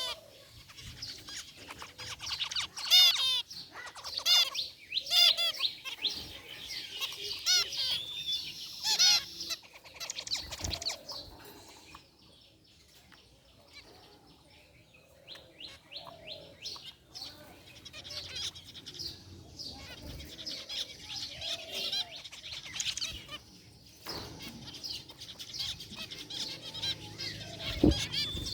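Zebra finches calling: many short, high calls in quick succession. The calls are thick over the first ten seconds, almost stop for a few seconds about halfway, then pick up again.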